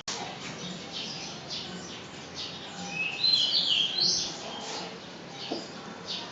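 Small birds chirping and calling in short, quick notes, busiest and loudest about three to four seconds in.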